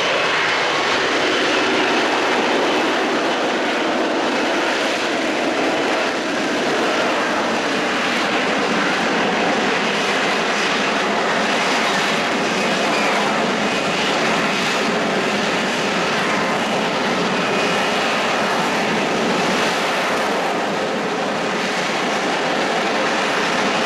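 F-35B Lightning II's single F135 turbofan, a loud, steady jet noise as the aircraft flies its display, swelling slightly now and then.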